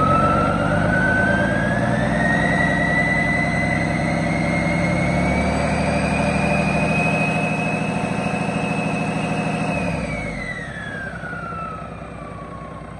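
2006 Volvo D12 12.1-litre inline-six diesel engine on a test stand, revved up and held at high revs with a whine rising with it. Near the end it drops back toward idle and the whine falls away.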